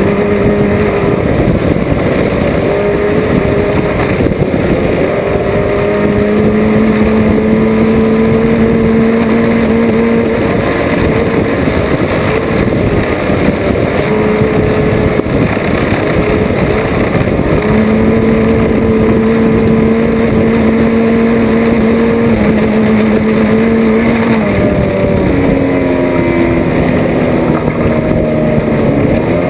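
Off-road race car's engine running hard under load over rough-ground rumble and wind. Its pitch holds steady for several seconds at a time, then falls and climbs again as the throttle comes off and back on.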